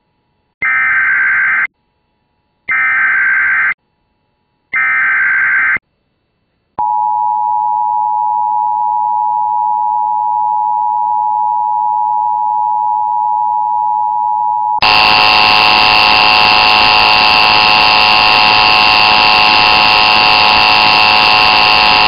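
Emergency Alert System warning audio. Three short bursts of warbling SAME header data tones, a second apart, are followed by the steady two-tone EAS attention signal. About fifteen seconds in, the attention signal turns louder and harsher, with added hiss and higher overtones.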